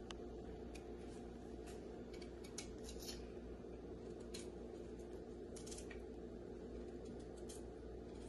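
Kitchen knife peeling a raw beetroot: faint, irregular short scrapes and clicks of the blade against the skin, over a steady low hum.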